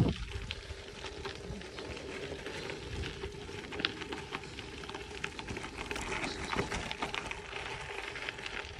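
Bicycle tyres rolling over a gravel dirt road: a steady crackle of small stones with scattered clicks and rattles over a faint steady hum.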